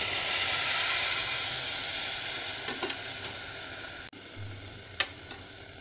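Water poured into a hot aluminium pressure cooker of fried vegetables and broken wheat, hissing as it hits the hot pan; the hiss slowly dies down. About four seconds in it cuts off abruptly to a quieter background, with a single click a second later.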